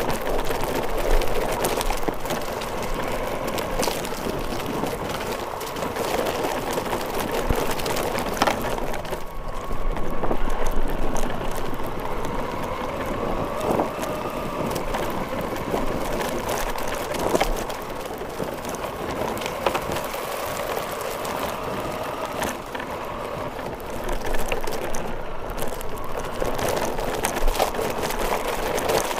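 Radio-controlled car driving over grass, dirt and dry leaves: continuous crunching and rattling from its tyres and chassis, with a steady motor whine. It is loudest around ten seconds in.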